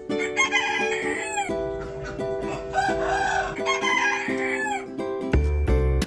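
Background music with a plucked-string melody and held chords, with chickens crowing and clucking over it. There is a low bump near the end.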